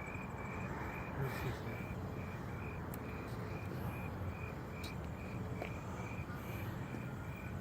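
A cricket chirping steadily, nearly three evenly spaced chirps a second, over a low background rumble.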